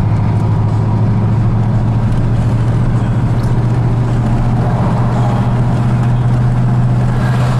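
Engine and road noise heard from inside a moving vehicle's cabin: a steady low drone with the rush of tyres and wind.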